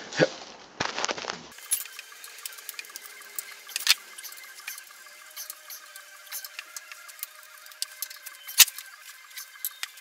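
Camera handling knocks at first, then a torque wrench tightening the bolts of a compact tractor's steel frame: a stream of small ratcheting clicks, with two sharper clicks about four and eight and a half seconds in.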